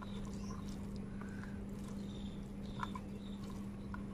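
Fingers mixing rice and curry gravy on a steel plate, giving a few faint soft clicks. Under it run a steady low hum and short high chirps repeating every second or so.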